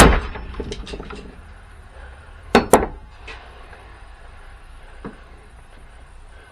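Small metal parts and hand tools clinking and knocking during disassembly of a battery booster pack. There is a sharp knock at the start, two quick clinks about two and a half seconds in, and a few lighter taps after.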